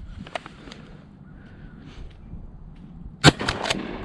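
A quiet stretch, then about three seconds in a single loud, sharp shotgun report, followed within half a second by two fainter sharp cracks.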